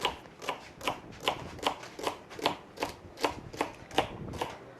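Knife chopping vegetables on a cutting board in a steady rhythm, about two to three crisp strokes a second.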